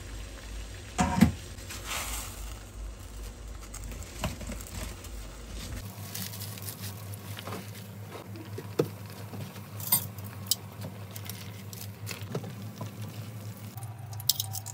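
Water boiling in a stainless steel saucepan, bubbling, with knocks and clinks of the pot and utensils, one loud knock about a second in. About six seconds in, a steady low hum comes in under scattered clicks.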